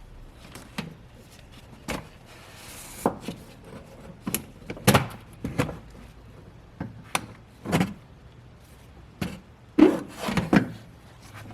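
Irregular metallic knocks and clinks of hand tools and parts being handled during work on an engine's alternator, with a brief scraping hiss a few seconds in and the loudest clanks about five and ten seconds in.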